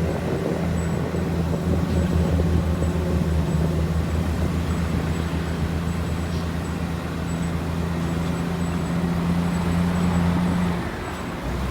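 Large diesel engine of earthmoving machinery running steadily with a low hum. Its note drops and the level dips briefly near the end.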